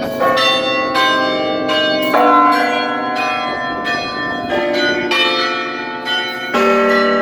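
Carillon bells of the Bruges belfry struck one after another at different pitches, each tone ringing on and overlapping the next. Near the end a louder, lower bell comes in.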